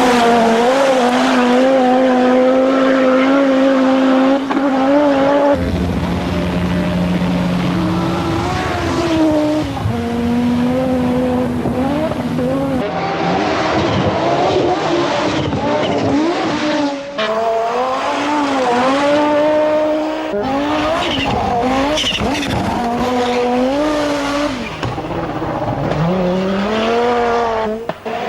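Audi Sport Quattro S1 rally car's turbocharged five-cylinder engine revving hard under load, its pitch climbing and dropping repeatedly through gear changes and lifts, over several spliced passes.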